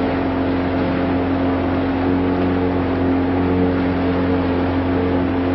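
Boat engine running steadily at an even speed, a constant droning hum with a hiss of wind and water over it.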